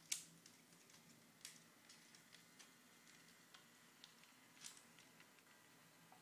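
Near-quiet room tone with faint, irregular sharp clicks, the strongest right at the start and two more about a second and a half and four and a half seconds in.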